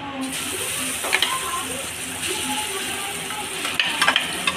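Ground chana dal paste sizzling as it is spooned into hot oil in a kadhai, the hiss starting just after it hits the oil. A few clinks of the metal spoon against the pan, about a second in and near the end.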